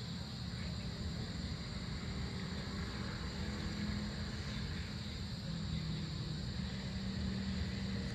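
Evening outdoor ambience: a steady low rumble of distant vehicle engines, with a steady high-pitched insect drone above it.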